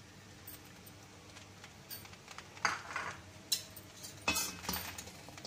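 A metal spatula scraping and knocking against a stainless steel pan several times in the second half, as the vermicelli is stirred.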